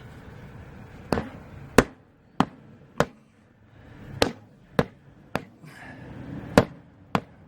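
Hammer blows knocking a worn tractor front tire down off its rim: about nine sharp strikes, roughly one every half second to second, with a couple of short pauses.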